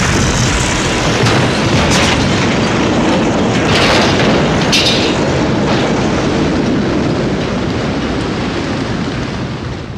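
A loud explosion-like roar: a dense, sustained rumble with sharp crackles a few seconds in, slowly easing off near the end.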